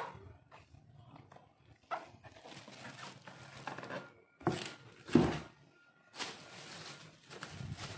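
Handling noises from a large plastic air fryer and its packing: rustling and knocks, with a heavy thump about five seconds in as the unit is set down on the floor.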